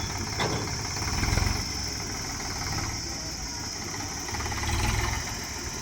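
A heavy machine's engine running at a steady idle, swelling briefly in level twice.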